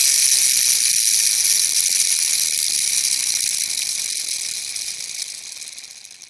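Clockwork motor of a vintage tin wind-up toy running, a high, steady whirring buzz from its spring-driven gears. It fades gradually as the spring runs down and has almost died away by the end.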